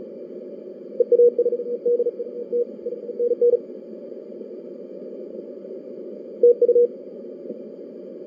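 Fast Morse code (CW) from an amateur radio transceiver's speaker: a steady beep keyed on and off in a quick run of characters for about two and a half seconds, then a few more short beeps later. Constant receiver hiss of band noise runs under it.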